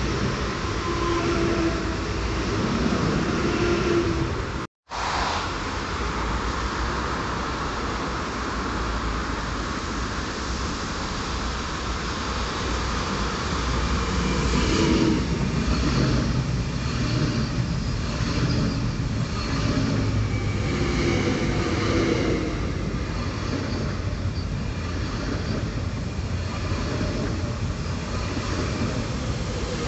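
Electric multiple-unit passenger trains running past close by, with a steady rumble of wheels on rail. A brief cut about five seconds in switches from one train to another. Midway through, the wheels clack again and again.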